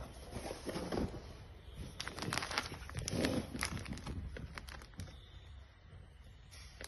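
Paper and plastic packaging rustling and crinkling as printed sheets are lifted out of a box, with a scatter of sharp crackles from about two to five seconds in.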